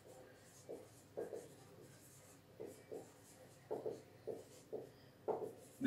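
Marker pen writing on a whiteboard: a string of short, faint strokes, one after another as each letter is drawn.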